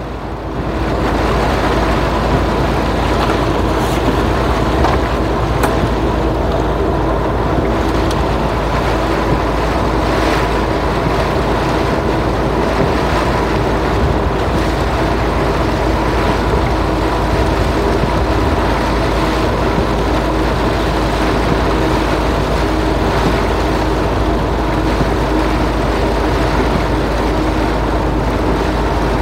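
Truck driving on the highway in heavy rain: a steady engine drone under an even hiss of rain and tyres on the wet road.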